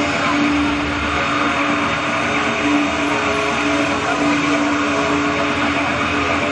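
Loud droning backing music played over a PA, a dense steady wash with one held note that sounds in stretches of about a second and drops out between them.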